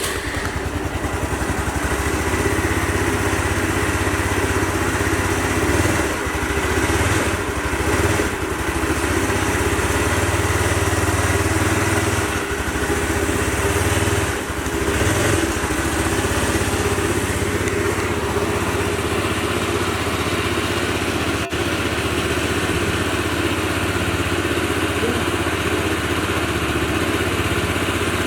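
Honda SCR automatic scooter's small single-cylinder four-stroke engine idling steadily, its note shifting slightly a few times. One sharp click comes about three-quarters of the way through.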